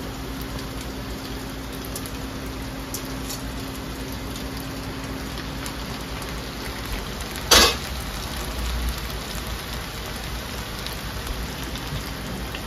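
Noodles and vegetables sizzling steadily in a frying pan, with one sharp knock about seven and a half seconds in.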